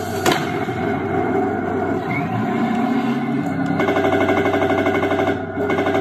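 RC model tank's sound unit playing a steady engine rumble, with a single sharp bang just after the start. From a little past halfway a rapid machine-gun fire effect rattles, breaking off briefly near the end.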